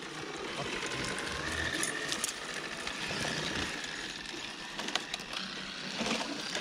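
Electric motor and gearbox of an RC scale crawler whining as it creeps over moss and leaves, the whine rising and falling briefly, with a few light clicks near the end.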